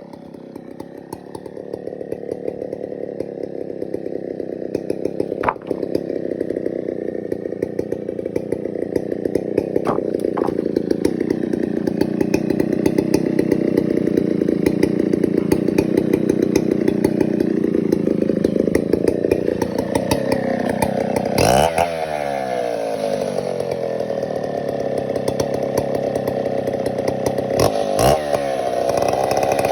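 Stihl 070 big two-stroke chainsaw running hard, cutting through wood. Its engine pitch swings sharply up and back down twice in the last third.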